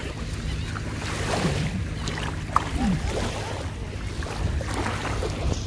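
Shallow sea surf washing and churning around waders, with wind rumbling on the phone's microphone.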